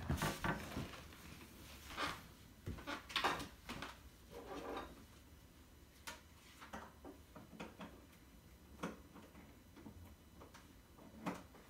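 Light knocks, clicks and rustles of things being handled and moved, busier in the first few seconds and then a few sparse taps.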